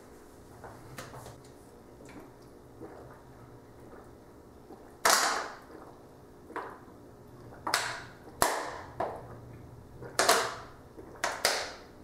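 Someone drinking from a thin plastic water bottle: about five short, sharp sounds in the second half, spaced one to two seconds apart, over a low steady hum.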